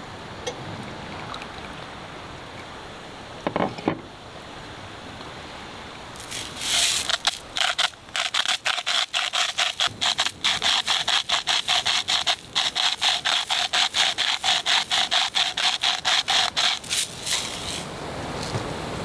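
Hand-twisted salt grinder crunching salt in quick, even strokes, about four to five a second. It starts about six seconds in and stops near the end.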